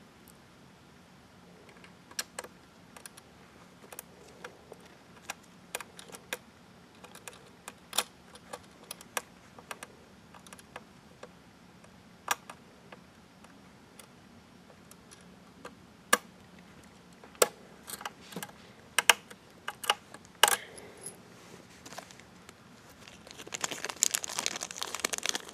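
Small metal screws and a screwdriver clicking and scraping against the plastic back panel of a Synology DS215j NAS as the screws are tried in the rear screw holes: scattered sharp clicks, some in quick pairs. Near the end a plastic bag crinkles.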